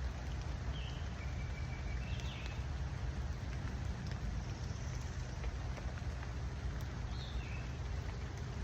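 Steady rain with a constant low rumble underneath, and a few short bird chirps, one near the start, a couple around two seconds in and more near the end.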